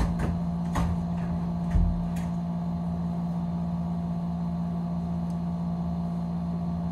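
A steady low machine hum with a few short knocks in the first two seconds.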